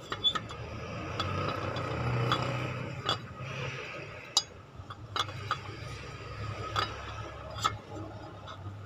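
Scattered sharp metal clinks and taps as the water pump pulley of an Isuzu 4JA1 engine is worked onto the studs of the new water pump hub, over a steady low hum.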